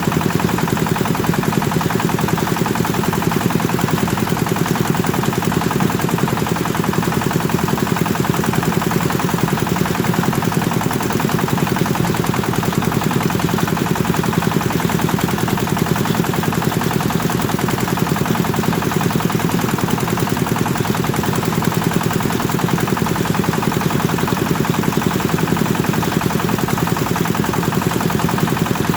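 Kubota diesel engine driving a rice thresher, running steadily at speed: a fast, even chatter of firing pulses over a low hum.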